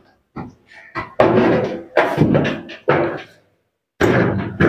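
Sheet-metal top cover of an air conditioner outdoor unit being knocked and pressed down into place: a string of about six sharp knocks with a short metallic ring, and a brief pause before the last one.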